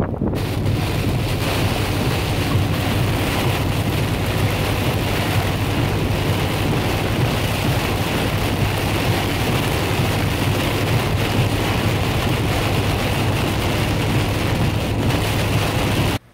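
Steady wind blowing across the microphone, a constant rumbling hiss that cuts off suddenly near the end.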